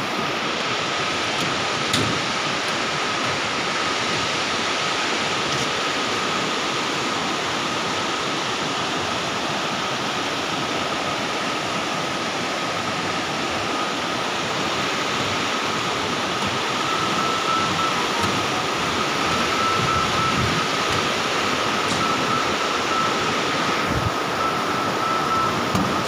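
Fast mountain river rushing over boulders, a steady rush of white water that grows a little louder in the second half. A faint steady high tone runs underneath.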